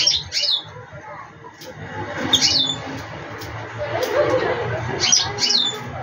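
Common linnet calling with short, high chirps that sweep downward, given in quick pairs and threes.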